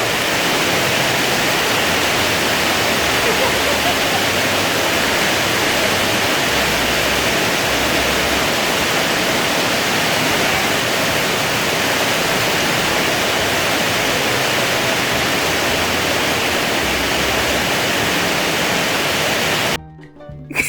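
Heavy rain drumming on the roof, heard from inside as a loud, steady hiss. It cuts off suddenly near the end.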